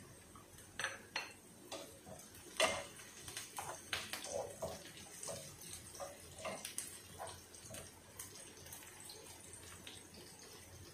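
Onions, garlic and bay leaves sizzling in oil in a nonstick pan, with a spatula scraping and knocking against the pan in irregular strokes as they are stirred.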